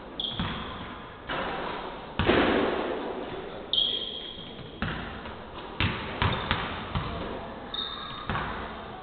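Basketballs bouncing on a hardwood court in a large, echoing sports hall: irregular thuds roughly every half second to second, the loudest a little over two seconds in. A few short high squeaks of shoes on the floor.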